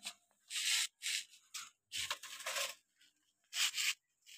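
A plastic toy excavator's bucket scraping and scooping through sandy dirt, in several short scrapes a fraction of a second each.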